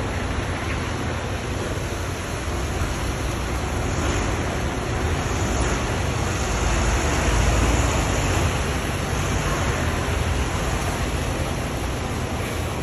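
Steady rumble and hiss of double-decker diesel buses running at a bus interchange, the deep rumble swelling to its loudest about seven to eight seconds in as a bus draws near.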